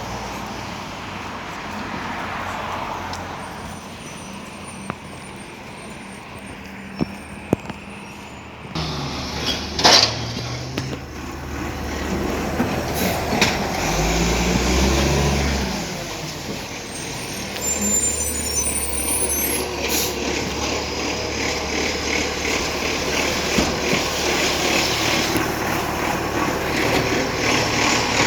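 Iveco ACCO side-loader garbage truck running, with a short sharp air-brake hiss about ten seconds in. Its engine revs up briefly a few seconds later, then settles into a steady, louder run.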